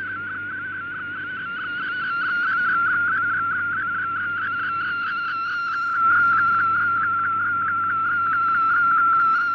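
MFSK digital-mode picture transmission received off shortwave radio: a single high, rapidly warbling data tone that holds one pitch band throughout and steps up in loudness about six seconds in.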